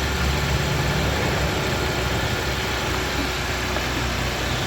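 2011 Hyundai engine idling steadily during a charging-system test of its newly installed alternator.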